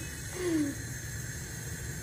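Steady hiss with a low hum from a gas stove heating a steel saucepan of water and tea leaves that has not yet come to the boil.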